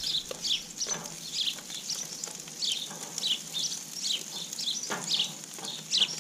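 Meat and potatoes sizzling in foil trays on a gas grill, with a few sharp clicks of metal tongs against the tray and grate as pieces are turned.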